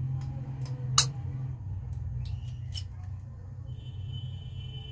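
Eggs being cracked into a dish: one sharp tap of shell about a second in, then smaller clicks and shell crackling, over a steady low hum. A faint high squeak comes near the end.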